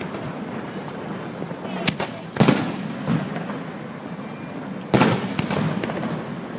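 Fireworks display: two loud booming shell bursts, about two and a half and five seconds in, with smaller pops and crackles between and after them.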